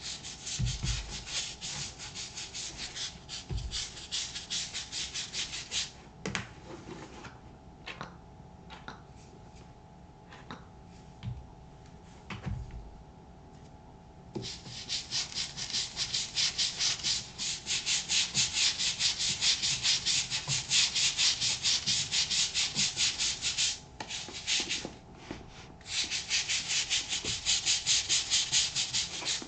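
Scrubbing on the outsole of a Thorogood moc toe boot, in rapid back-and-forth strokes with a hissing edge. The scrubbing pauses for several seconds from about six seconds in, leaving a few scattered taps and knocks, then starts again and runs on steadily.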